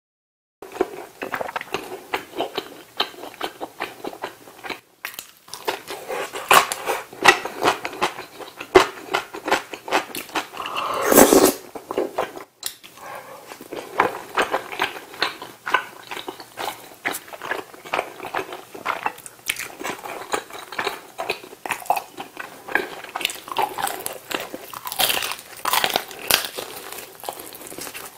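Close-miked mukbang eating: chewing and biting of tteokbokki rice cakes and then fried chicken, with many quick crunches and mouth clicks. There is one longer, louder noise about eleven seconds in.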